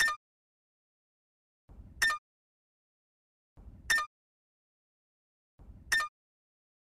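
Quiz countdown-timer sound effect: four sharp ticks about two seconds apart, one for each number as the count runs down. Each tick is preceded by a brief low rustle.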